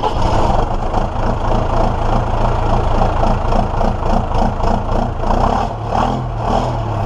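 A tractor engine running steadily, its pitch wavering up and down a little. The sound cuts off abruptly near the end.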